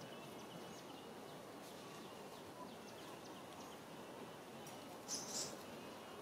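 Faint outdoor background hiss with scattered thin, high chirps, and a brief high-pitched squeak about five seconds in.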